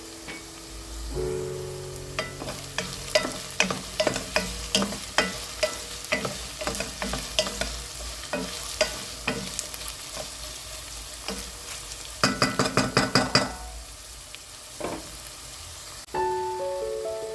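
Kitchen utensil clinking against a bowl as food is stirred: sharp clicks at about two a second, then a quick run of rapid clicks near the end.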